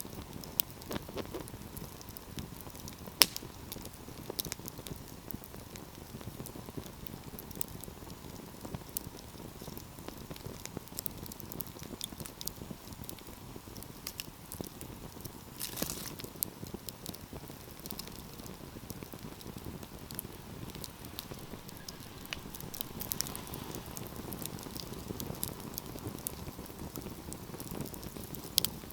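Wood fire crackling, with irregular sharp pops over a low steady rush of flames; the loudest pop comes about three seconds in.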